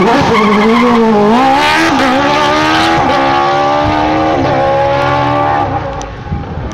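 Open-wheel single-seater sprint car launching from the start line and accelerating hard away, its engine climbing through the revs with several quick upshifts. It fades near the end as the car draws away up the course.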